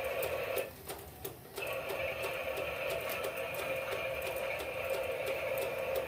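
Small electric motor of a battery-powered toy train whirring steadily, with a regular rapid clicking as it runs. The whir cuts out for about a second shortly after the start, then resumes.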